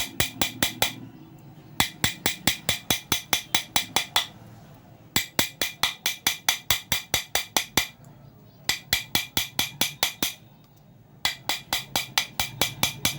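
Rapid metal-on-metal strikes, about four or five a second in runs of two to three seconds with short pauses: an iron file being struck into a ceiling fan's worn steel shaft to raise punch marks. The marks are meant to make the loose 6201 bottom bearing sit tight, since a loose bearing on a cut shaft makes the fan hum and jam.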